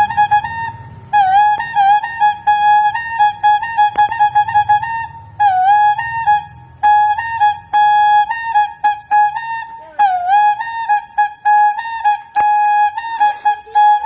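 Telolet horn playing a fast tune of short toots and held notes on a single high pitch, some notes dipping briefly in pitch. A low rumble runs underneath for the first ten seconds, and a short hiss comes near the end.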